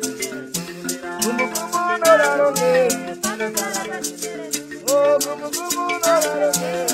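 Background music: a song with a steady shaker rhythm, held chords and a singing voice.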